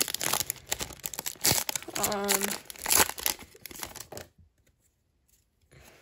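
Plastic wrapper of a baseball card pack being torn open and crinkled: quick, dense crackling that stops about four seconds in.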